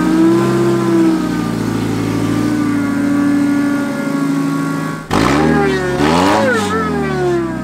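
Mazda Miata engine fitted with an Eaton M45 supercharger, running just after its first start on the supercharger: a steady idle with an insanely loud supercharger whine, then revved up and back down about five seconds in, with a second rev beginning near the end.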